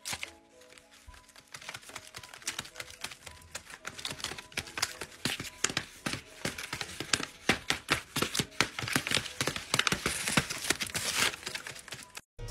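Folded paper dragon puppet crinkled and tapped close to the microphone, ASMR-style: a dense run of crisp paper clicks and rustles that thickens after the first couple of seconds.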